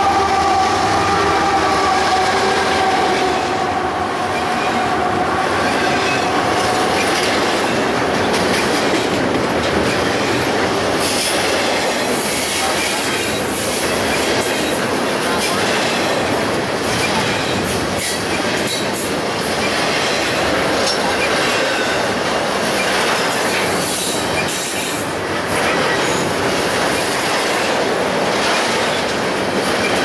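Union Pacific double-stack intermodal freight train passing close by. A steady tone from the departing locomotives fades out over the first several seconds, leaving the steady rolling rumble and clatter of the stack cars' wheels on the rails, with patches of high-pitched wheel squeal.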